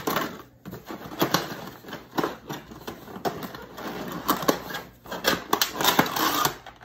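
Irregular crackling and clicking of a clear plastic clamshell food container being handled and worked loose inside a cardboard box.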